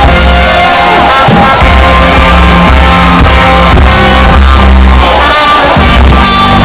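Live band music played loud over a sound system, with a heavy, steady bass line under sung and instrumental melody lines.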